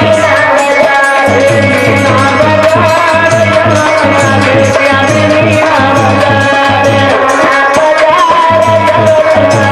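Hindi folk song (lokgeet) dance music played loud, with hand drums keeping a fast, steady rhythm under a held melodic line.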